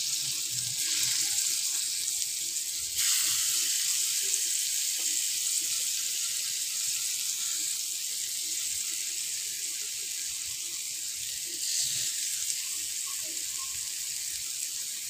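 Chicken kababs sizzling in melted butter in a nonstick grill pan: a steady high hiss that jumps louder about three seconds in as more kababs go into the pan.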